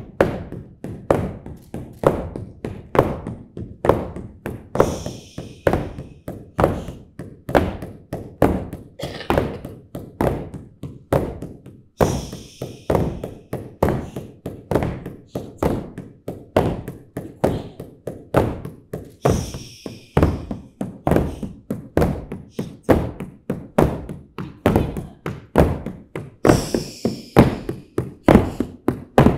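Wooden staffs knocked on the stage floor in a steady rhythm. Every several seconds the performers add a drawn-out 'shh' hush.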